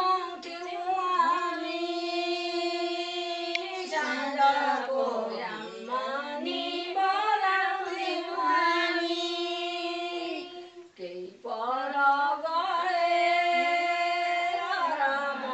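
A group of Nepali women singing a sangini folk song together, unaccompanied, in long drawn-out notes. The singing breaks off briefly about eleven seconds in, then resumes.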